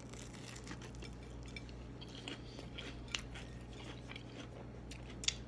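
Close-up chewing and biting of fried deviled eggs: faint crunches and small wet mouth clicks, over a steady low hum.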